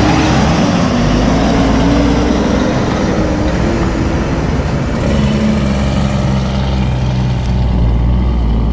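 Kenworth T800 semi-truck's Cummins ISX 450 diesel engine pulling away under load and driving off. Its engine note climbs, drops about five seconds in, then climbs again over a steady low rumble.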